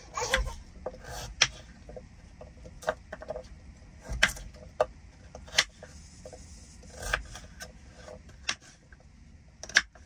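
Kitchen knife cutting a raw potato into cubes on a bamboo cutting board: irregular sharp taps of the blade against the wood, about one a second.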